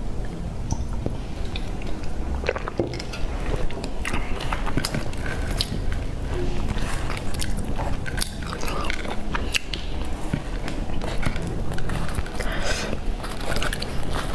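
Close-miked eating sounds: chewing and small wet mouth clicks, with soft bread being pulled apart, over a low steady hum.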